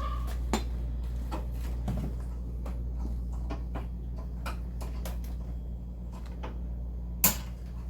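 Hand tools and instruments being handled and set down: scattered light clicks and knocks of small hard objects, with one sharper click near the end, over a steady low hum.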